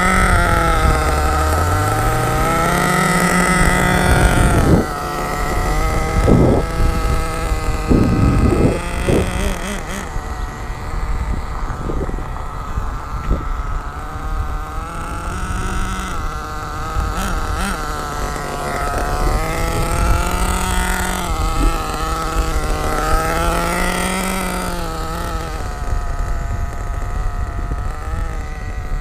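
HPI Savage X 4.6 nitro RC truck's 4.6cc Big Block glow engine running at part throttle during break-in. Its revs climb over the first three seconds and drop sharply about five seconds in, with a few brief knocks soon after. It then settles to a steady run with small rises in pitch.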